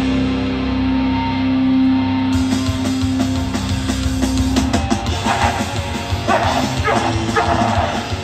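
Hardcore punk band playing live, loud and amplified: a steady held note for the first few seconds, then harsh shouts come in over the band about five seconds in.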